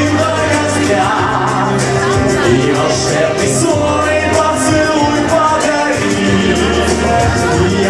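A man singing a pop song into a handheld microphone over musical accompaniment.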